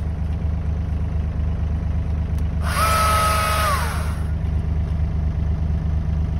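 Wacker Neuson EZ38 mini excavator's diesel engine idling steadily. Midway a Stihl MSA 220 C battery chainsaw runs for about a second and a half: a high steady whine that falls in pitch as the chain winds down.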